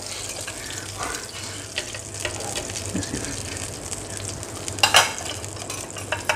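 Butter, garlic and herbs sizzling steadily in a hot ridged grill pan, with a few light clicks and one short, louder clatter about five seconds in.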